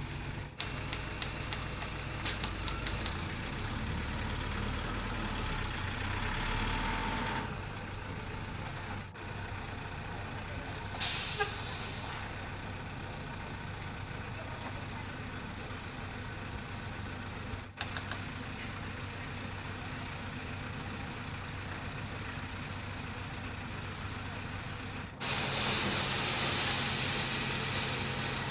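Heavy truck engines running steadily, with a short hiss of air from the air brakes about eleven seconds in. The sound changes abruptly several times, and near the end a louder hiss joins the engine.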